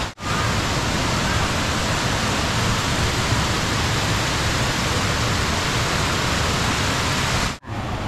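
Kuang Si Falls' waterfall and cascades rushing steadily. The sound breaks off twice for an instant, just after the start and near the end.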